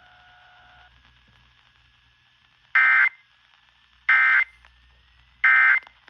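Emergency Alert System end-of-message code over an FM radio's speaker: three short, loud bursts of the SAME digital data tones, about 1.3 seconds apart.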